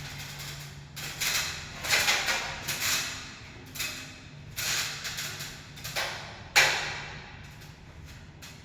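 A series of about a dozen short, irregular scraping and knocking noises, the sharpest one near the end, over a faint steady hum.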